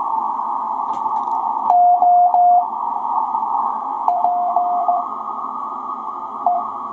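Receiver audio from a Ten-Tec Paragon 585 HF transceiver: steady background hiss, narrowed by the passband tuning, with a Morse code (CW) tone keyed on and off in short groups twice and once briefly near the end. A few faint clicks.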